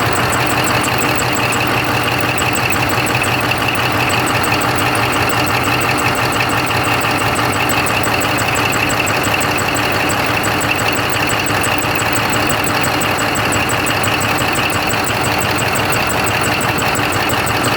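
Caterpillar 3508 V8 diesel engine running steadily at idle, with a fast, regular ticking of several ticks a second over the engine note: the strange noise from the rocker arm area of the valve train.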